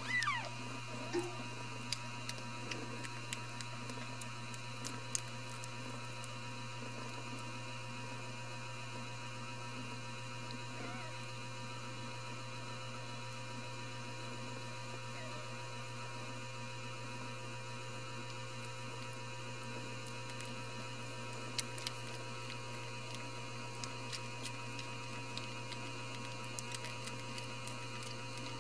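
Steady electrical mains hum, a constant low drone with faint steady tones above it. Right at the start a newborn kitten gives a short squeak that falls in pitch, and faint clicks come and go.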